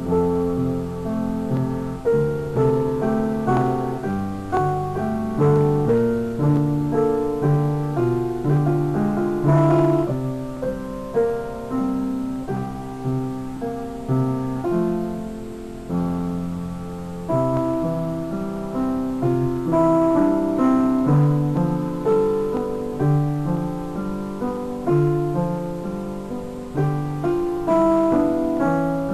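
Piano music: a steady run of struck notes that ring and fade, over a lower bass line.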